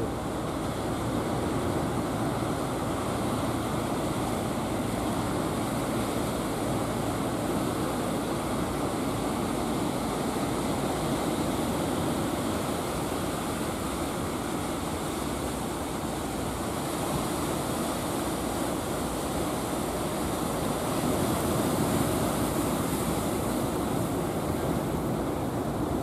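Ocean surf breaking and washing onto a beach, a steady rush that swells a little late on.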